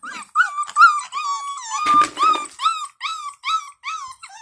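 Young puppies crying in a steady run of short, high, rising-and-falling whimpers, about three a second, with a few longer held wails: early attempts at howling, crying for their mother.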